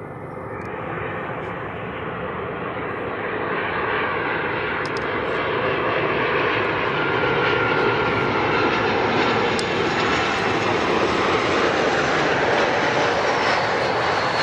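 Jet engines of a Boeing 737 airliner passing close by, growing louder and brighter over the first half, then holding steady and loud, with a faint thin whine in the middle.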